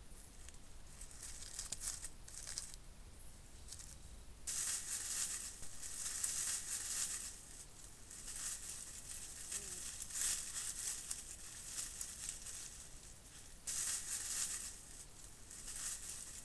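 Faint crackling rustle of dry grass and leaves, coming and going in stretches, with sudden starts about four and a half seconds in and again near the end.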